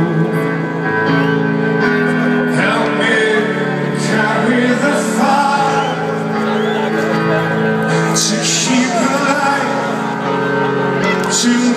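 Live band music with a man singing over long held notes, heard from among the audience in front of an open-air stage.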